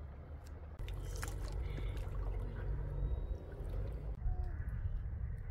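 River water splashing and trickling over a low rumble, the sound changing abruptly about a second in and again a little after four seconds.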